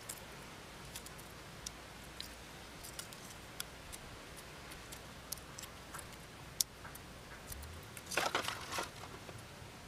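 Hard-boiled eggshell crackling and clicking as it is cracked and peeled off by hand, with bits of shell dropping into a metal wok. A louder burst of crunching comes about eight seconds in.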